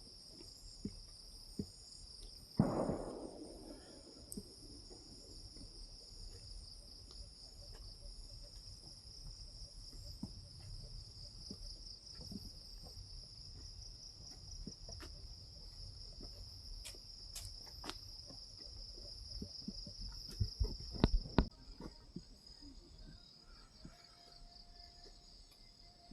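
Forest insects trilling in a steady, high-pitched, finely pulsing chorus. Scattered knocks sound over it, with a louder thud about three seconds in and a short cluster of knocks around twenty-one seconds.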